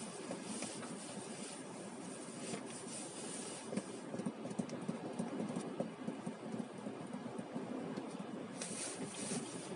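Strong wind blowing: a steady rushing noise with small scattered crackles.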